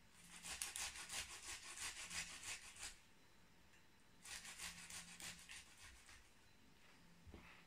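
Beetroot being grated on a metal box grater: a run of quick, even scraping strokes for about three seconds, a pause, then a second shorter run.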